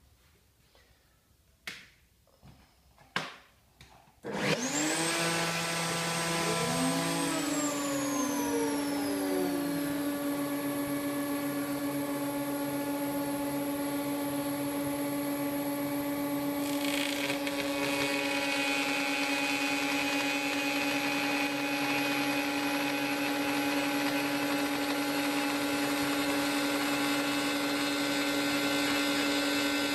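A few light clicks, then a multi-speed router switches on about four seconds in and spins up with a rising whine. A few seconds later its pitch falls as it is turned down to its slowest speed, about 8,000 rpm, and it then runs steadily. Around seventeen seconds in the sound turns brighter and rougher as the fretboard radius bit starts cutting into the wooden fretboard blank.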